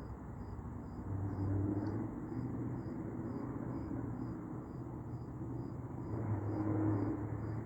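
Distant aircraft engine droning overhead, a low hum that swells and eases, with a cricket chirping steadily about twice a second.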